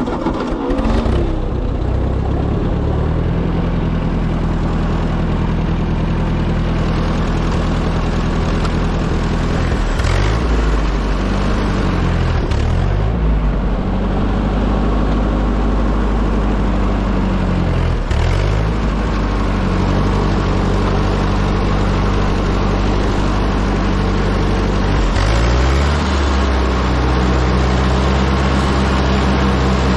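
Ford 8N tractor's four-cylinder flathead gasoline engine running just after start-up while pulling a V-shaped potato plow along a furrow. The engine speed dips and recovers a few times and settles higher in the last few seconds.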